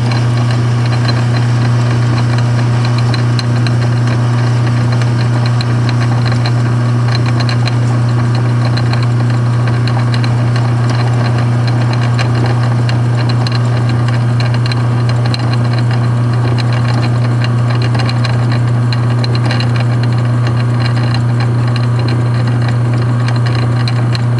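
Atlas MK-2 6x18 bench lathe running steadily under power, its motor giving a strong constant hum, while a carbide facing tool in a quick change tool post takes a cut on the end of a steel bar. Faint fast ticking rides over the hum.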